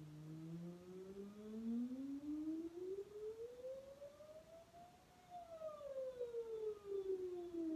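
A woman humming one slow, smooth glide from a low note up to a high note about five seconds in, then sliding gently back down. It is a humming warm-up exercise that works through the vocal range.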